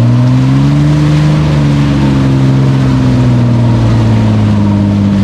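Jeep TJ Wrangler engine running as the vehicle drives, its pitch rising a little over the first second and then slowly falling.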